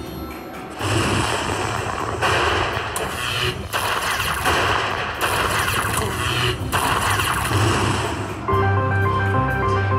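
Lightning Link slot machine's electric-zap sound effect as lightning strikes the coin symbols and their values are added up: a long noisy crackle broken by two short gaps. About eight and a half seconds in, it gives way to a chiming jingle from the machine.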